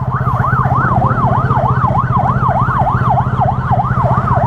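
Emergency vehicle siren in a fast yelp, its pitch rising and falling about four times a second, with a steady low engine hum underneath.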